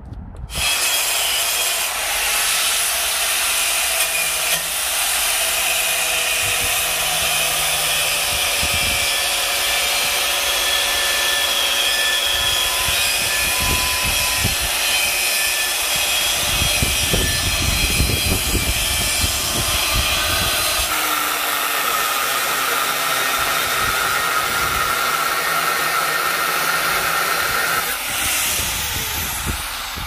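Handheld angle grinder grinding an edge onto a thick steel-plate axe blade, a steady loud grinding that starts about half a second in and stops shortly before the end. Its whine changes pitch about two-thirds of the way through.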